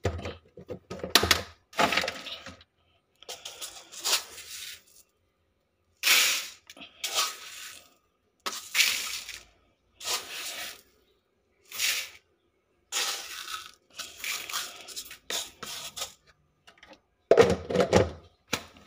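Dry uncooked rice grains being scooped by hand from a plastic storage tub and poured into a plastic basin: a series of about a dozen short, rattling pours with brief pauses between them.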